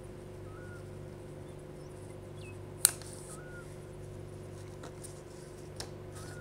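Small scissors snipping heat-shrink tubing: one sharp snip a little under halfway through, then two fainter clicks near the end. A steady low hum and a few faint short chirps sit underneath.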